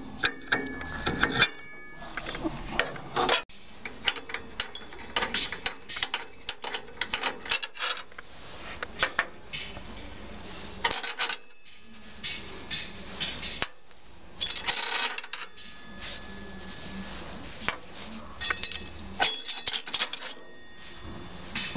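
Metal clinks, knocks and scrapes of hand work on a circular saw's blade shaft: a wrench on the arbor nut, and the toothed steel saw blades being worked off the threaded shaft. Irregular short clinks throughout.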